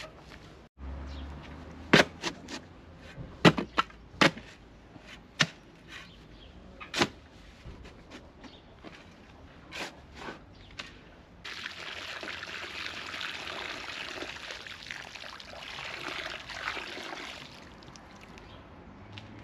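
A run of sharp knocks, then for about six seconds from just past halfway a steady rush of water being poured into a mix of white cement and marble dust.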